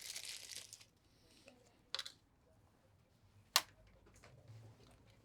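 Plastic crinkling that stops under a second in, then two sharp clicks, the second louder, as a phone charger and its cable are handled.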